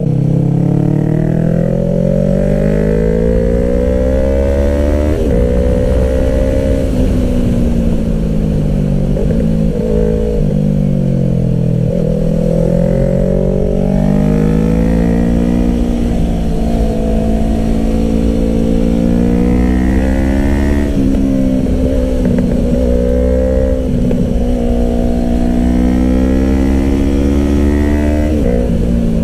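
Yamaha R3's 321 cc parallel-twin engine through an M4 Street Slayer exhaust with the baffle in, heard on the move. The engine note climbs under throttle and drops sharply at gear changes, several times over.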